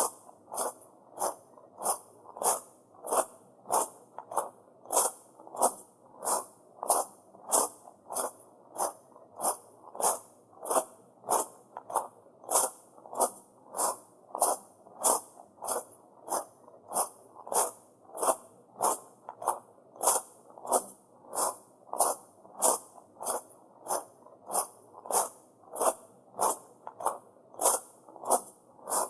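Footsteps crunching on tamajari, the small rounded gravel pebbles of a Japanese shrine path, at a steady walking pace of about two steps a second.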